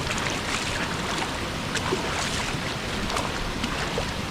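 Steady rush of river water at a waterfall.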